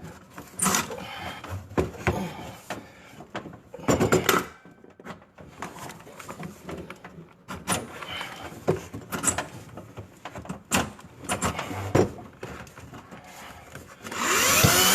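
Scattered knocks and rattles of the drain cable and rodding machine being handled. Near the end the electric drain-rodding machine's motor starts and spins up with a rising whine, turning the cable in the drain line.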